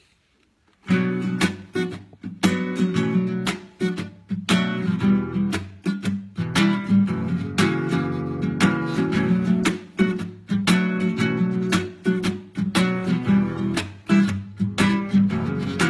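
Instrumental song intro on strummed acoustic guitar, with regular sharp strums over sustained chords. It starts about a second in, after a moment of silence.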